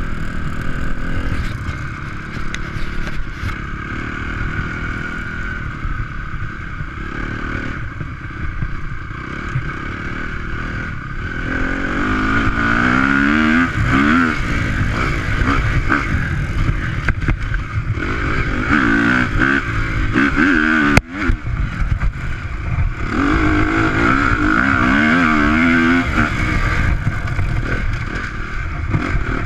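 Dirt bike engine running as the bike is ridden along a trail, the pitch rising and falling as the rider revs and shifts. It runs more steadily at first, and the revving grows busier about twelve seconds in.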